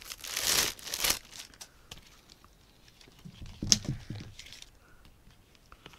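Clear plastic bag crinkling as a folded red paper item is pulled out of it, loudest in the first second, followed by light rustling of the paper as it is unfolded and one brief handling knock a little before four seconds in.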